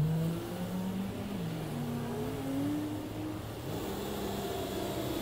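A car passing close by and accelerating away. Its engine note rises in stages, loudest as it goes past, then fades into road noise.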